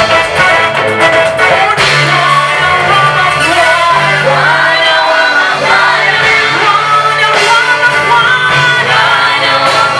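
Swahili gospel song: voices singing over instrumental backing with a steady bass line.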